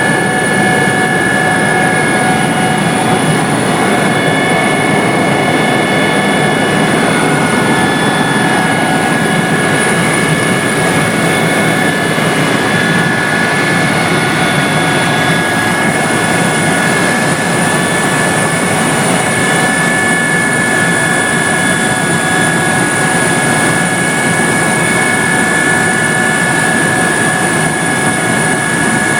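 Helicopter running steadily in flight: a dense, unbroken rotor and engine noise with several steady high whining tones over it.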